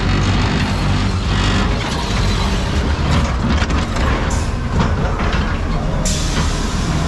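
Ghost train car rumbling and rattling along its track into the dark ride, with a steady low hum and scattered knocks. A short sharp hiss comes about six seconds in.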